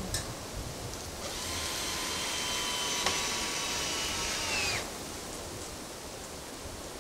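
A handheld power drill runs steadily for about three and a half seconds, then spins down and stops.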